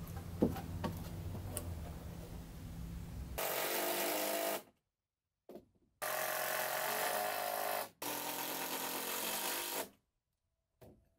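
Cordless drill driving screws into wooden deck boards: after a few seconds of low steady hum, the drill runs three times for one to two seconds each, stopping sharply each time.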